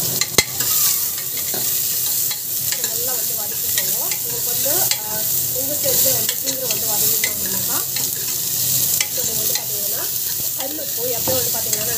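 Chopped onions sizzling as they fry in hot oil in a pan, stirred with a spatula that scrapes and squeaks against the pan in short strokes. A sharp clack of the spatula on the pan about half a second in.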